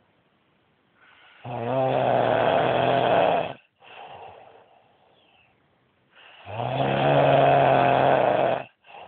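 A man snoring heavily while asleep: two long, loud, rasping snores about five seconds apart, each with a softer breath out after it.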